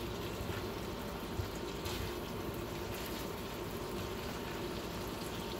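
Cubes of ground beef sizzling steadily in butter in a hot skillet on an induction burner at its highest setting, while a silicone spatula turns them.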